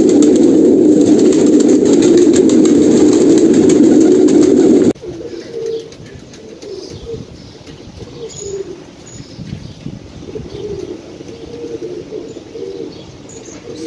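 A loud, dense din fills the first five seconds and cuts off suddenly. After that, a flock of domestic highflyer pigeons coos with repeated low warbling calls and a few higher chirps.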